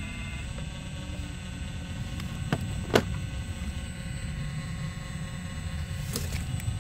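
Radio-controlled scale model Volvo excavator working its boom and arm: a steady low running sound, with a sharp click about three seconds in and a few fainter clicks near the end.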